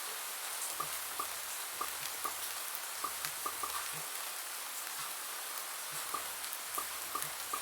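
Steady rain hiss with short bubble-pop sounds layered on top, each a quick pop with a brief pitched blip, coming irregularly a few a second with a lull of a couple of seconds in the middle.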